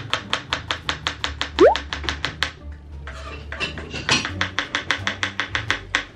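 Kitchen knife chopping quickly on a cutting board, about eight strokes a second, with a brief pause around the middle before it carries on. About a second and a half in, a short loud tone rises in pitch.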